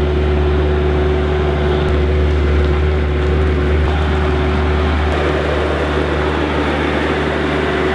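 A machine's engine running steadily at a constant speed, with a deep hum and a steady whine over it. It cuts off abruptly at the end.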